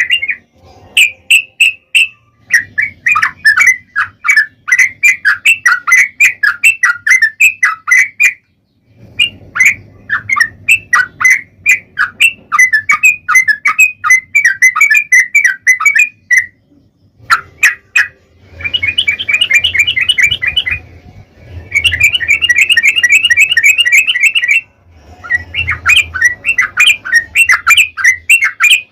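Yellow-vented bulbul (trucukan) singing long, rapid runs of chattering notes, several notes a second. The song comes in long phrases broken by short pauses, the longest near the middle.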